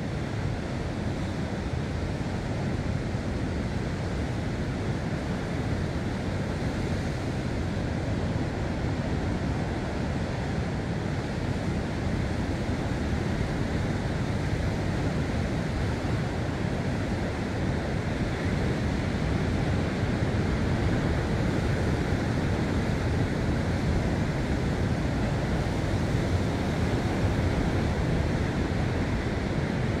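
Sea surf washing steadily against a rocky shore, a continuous rush of waves with no single loud breaker standing out.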